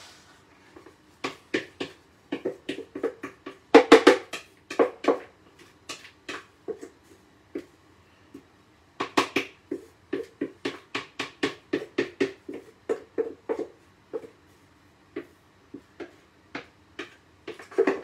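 Wooden spoon knocking and scraping against a plastic mixing bowl while scraping out the last of the slaw: a run of irregular knocks, loudest in clusters about four seconds in and again around nine seconds.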